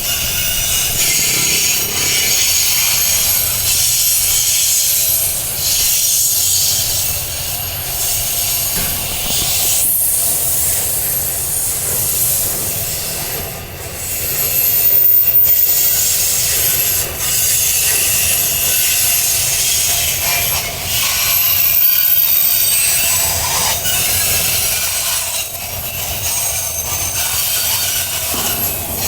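Timber freight train's wagons rolling slowly past, the wheels squealing and grinding against the rails in a steady, shifting high screech over a low rumble.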